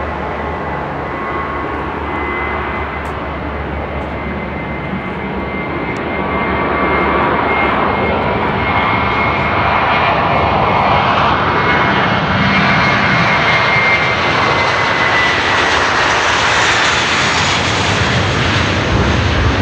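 Airbus A321-231 jet airliner with IAE V2500 turbofans at take-off thrust on its take-off roll: a steady jet roar with a high whine, getting louder about six seconds in. The whine sags slightly in pitch near the end as a deep rumble builds.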